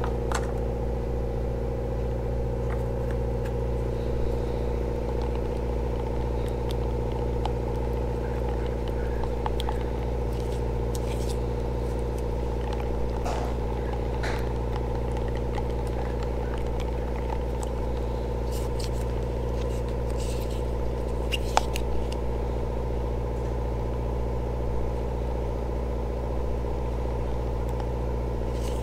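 An engine running steadily, an even low drone with several steady tones, unchanging throughout. Scattered faint ticks and clicks sit on top of it.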